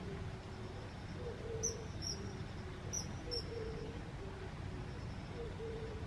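Common kingfisher giving four short, shrill high calls, in two pairs about a second apart. A low two-note call repeats under them with a steady low rumble.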